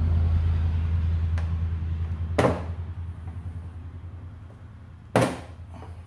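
Two sharp clicks of a screwdriver and pliers prying at a two-piece plastic push-in panel retainer, the second about three seconds after the first, over a low steady hum that gradually fades.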